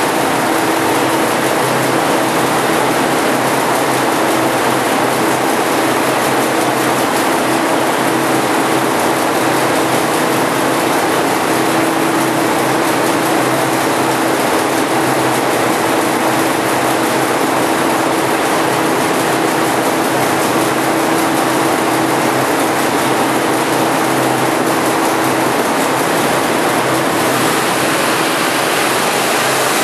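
Ford 390 FE V8 stroked to 445 cubic inches running on an engine dyno, held at a steady speed with an even, unchanging note.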